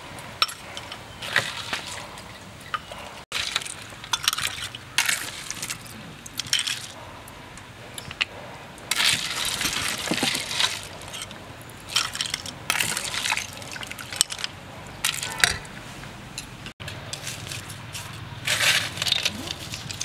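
A metal spoon stirring and scraping in a stainless steel bowl of iced dessert, with ice clinking against the metal and glass in irregular bursts.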